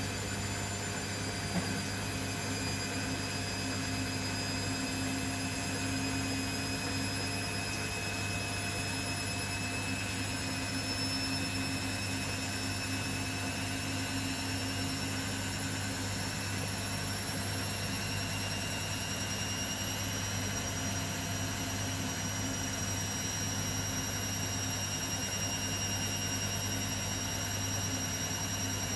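Beko WML 51211 EL+ front-loading washing machine running with a steady hum and a high motor whine that climbs slowly in pitch, as the drum speeds up in a spin.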